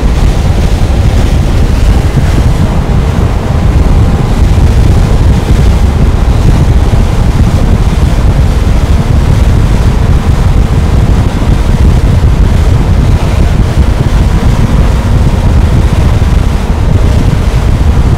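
Wind rumbling heavily on the microphone over rushing water aboard a 335 Everglades center-console boat running at speed, being taken up to about 25 miles an hour. A faint steady engine hum runs underneath.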